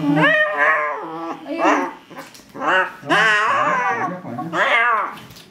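Frightened cat yowling and growling in distress while restrained in a head cover, about five drawn-out cries with a wavering pitch, the longest about three seconds in.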